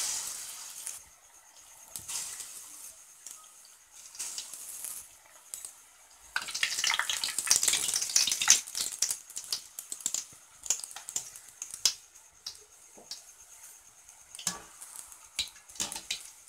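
Batter-coated potato bondas deep-frying in hot groundnut oil in a kadai: a steady sizzle with sharp crackles. It surges as a ball drops in at the start, and is loudest about six to nine seconds in while the bondas are stirred with a wire skimmer.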